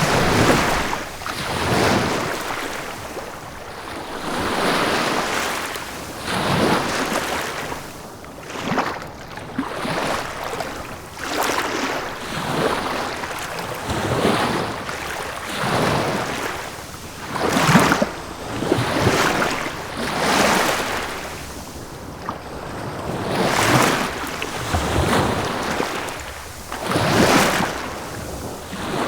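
Sea waves breaking and washing up on a shore, each swell of surf rising and falling every two seconds or so.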